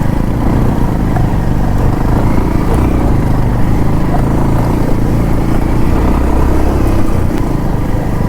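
Bajaj Pulsar 150's single-cylinder engine running steadily while riding an off-road trail, with a heavy low rumble of wind on the microphone.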